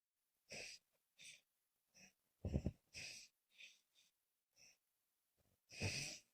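A sleeping woman snoring in short, breathy bursts on both the breath out and the breath in, with silent gaps between them. Louder, rougher snores come about two and a half seconds in and again near the end. The uploader takes the pattern for a struggle to breathe.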